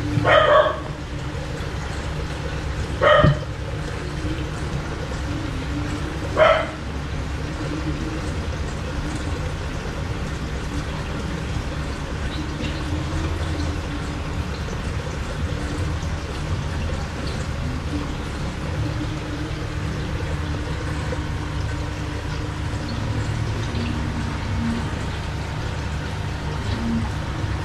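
A dog barks three short times in the first seven seconds or so, over a steady low hum.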